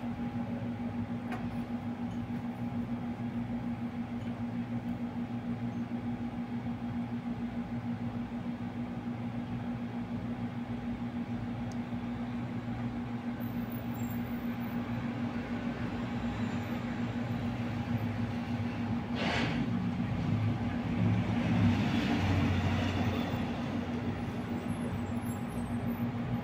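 Steady low mechanical hum with a constant tone. It swells with a short whoosh about 19 seconds in and a louder rushing stretch a few seconds later.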